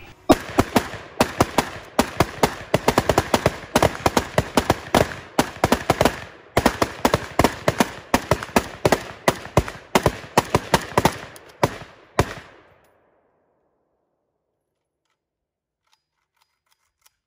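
Rapid, overlapping gunfire from several 5.56 Micro Galil-style pistols fired together, shot after shot with no break, stopping abruptly about twelve seconds in.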